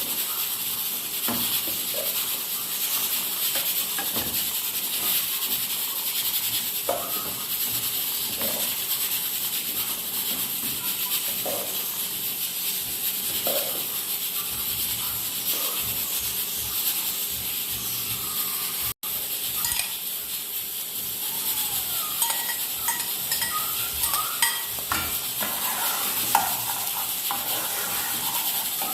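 Food sizzling in a pot, stirred and scraped with a spoon every couple of seconds; later, lighter clinks of the utensil against the pan.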